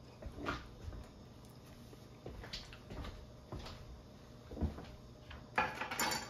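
Kitchen handling sounds: a scattered series of short knocks and clacks from cookware and containers being moved about, then a brief rustling scrape near the end.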